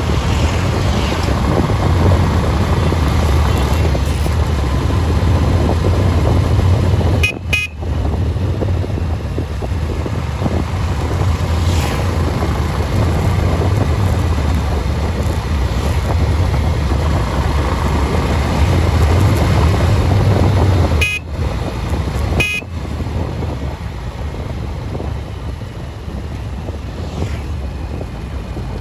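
Wind buffeting the microphone over the steady low rumble of a vehicle moving at road speed on a highway. The noise dips briefly twice.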